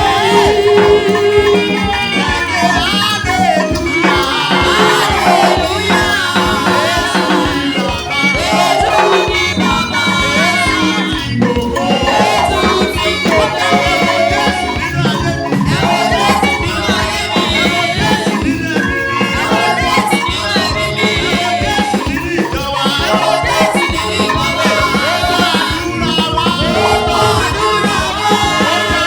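Praise and worship music: voices singing over a steady, driving beat of drums and percussion.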